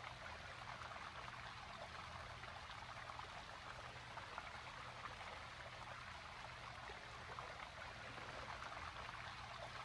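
Faint, steady rushing of running stream water, with no breaks or distinct events.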